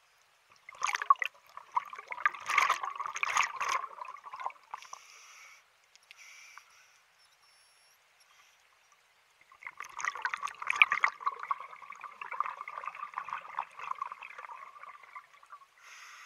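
Scuba diver's exhaled breath bubbling out of a regulator underwater, recorded by the diver's camera: two long bursts of bubbles, the second starting about halfway through.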